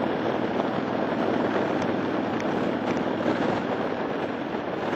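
Steady wind and road noise of a motorcycle riding at speed, heard from a camera mounted behind its windshield: an even, rough rush with no clear engine note above it.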